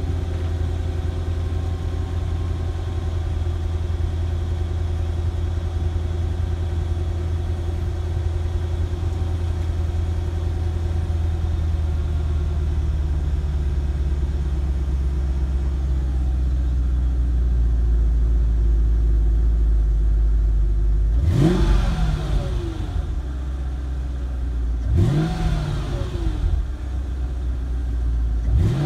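Mercedes S55 AMG's supercharged 5.4-litre V8 (M113K) idling through its stock exhaust shortly after a cold start. About 21 seconds in, the throttle is blipped three times, a few seconds apart, each time rising quickly in pitch and falling back to idle.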